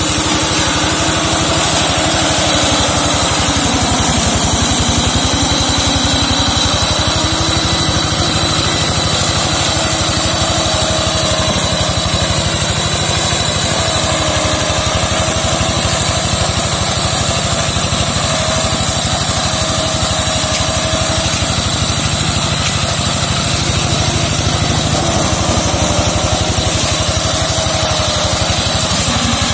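Engine of a walk-behind two-wheel tractor with a slasher mower attachment, running steadily as the machine cuts through undergrowth, its pitch wavering slightly.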